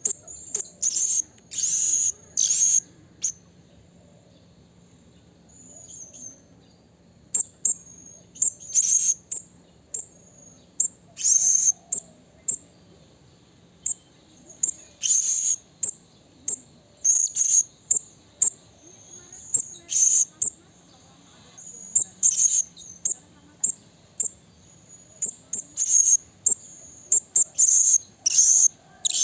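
Blue-crowned hanging parrot (serindit) calling: sharp, very high-pitched chirps, some single and some in quick runs of two or three, with a pause of a few seconds after the first calls.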